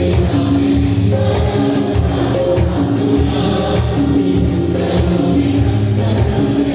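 Live worship band playing: arranger keyboards, electronic drum pads, bass guitar and electric guitar, with held keyboard notes over a steady high percussion rhythm.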